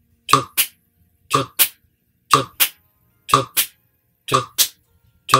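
A man sings a short syllable on every beat, about once a second, and claps his hands sharply about a quarter of a second after each one. This is a rhythm drill at 60 bpm: singing on the quarter notes and clapping on the second sixteenth note of each beat.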